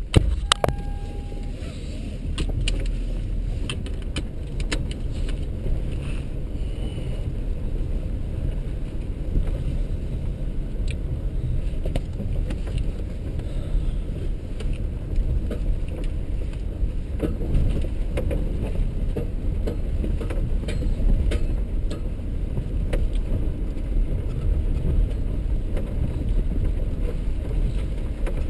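Off-road vehicle heard from inside the cabin, driving down a rough dirt trail: a steady low rumble of engine and tyres, with scattered rattles and knocks as it bumps over rocks.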